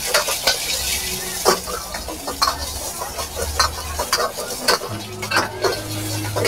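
Egg frying in hot oil in a wok, sizzling steadily, while a steel ladle stirs and repeatedly scrapes and clinks against the wok, over a low steady hum.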